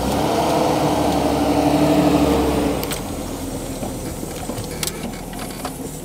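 An old Jeep Cherokee's engine running as it drives slowly over forest grass, a steady hum that rises slightly at first and fades away about three seconds in.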